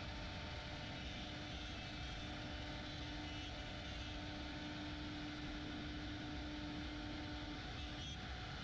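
AVID CNC router running steadily, a constant machine noise with a humming note that fades out near the end.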